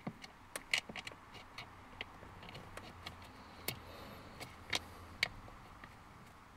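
Scattered sharp clicks and ticks, irregularly spaced, from hands fitting a new plastic accelerator pedal assembly and turning in its top mounting screw.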